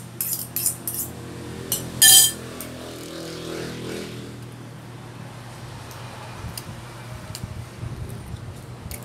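Metal utensils clinking and tapping against a ceramic bowl: a few light clicks in the first second, then one loud ringing clink about two seconds in, followed by occasional faint taps over a steady low hum.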